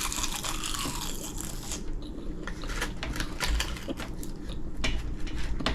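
A person biting and chewing a crisp, salted snack: many small, irregular crunches throughout.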